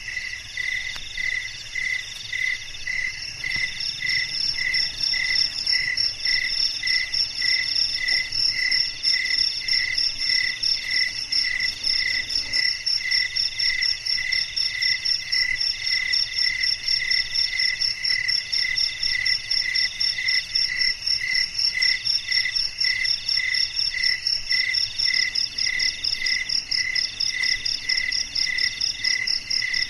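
A chorus of night insects chirping steadily, several calls layered together: one pulsing about twice a second, and a higher, faster trill that joins about four seconds in.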